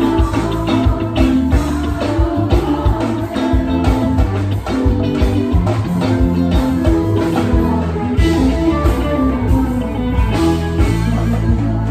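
Live band playing, with a solid-body electric guitar close to the microphone over a steady drum beat and bass.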